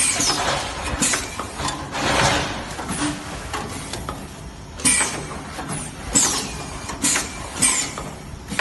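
Pneumatic flip-flop sole punching machine cycling: about eight sharp punch strokes at irregular intervals, each followed by a quick hiss of released air.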